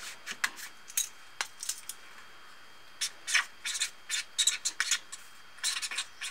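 Felt-tip marker scratching across a sticky-note pad in short, quick strokes as a word is written, busiest from about halfway through. It is preceded by a few light taps and brushes as the pad is set down.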